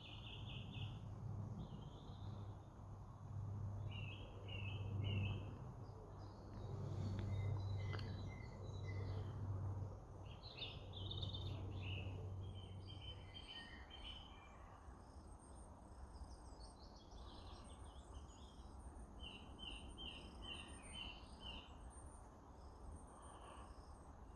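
Small woodland birds calling with runs of short, repeated chirps and a thin high twitter, over a low rumble that fades out about halfway through.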